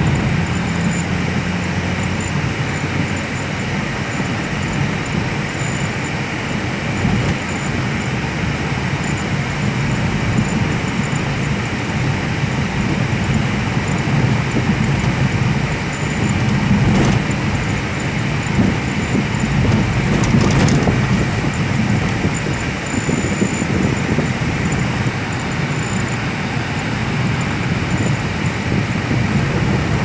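A car driving at a steady speed, heard from inside its cabin: a continuous rumble of tyres on the road and engine noise, with no distinct events.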